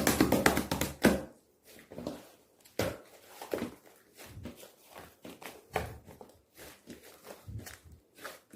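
Hands squishing and poking a soft, fluffy slime, making irregular sticky clicks and small pops. The densest squishing comes in the first second or so.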